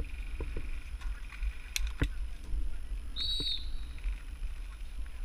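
Low wind and handling rumble on a GoPro action camera's microphone, with a few sharp clicks about two seconds in and one short high chirp a little after three seconds.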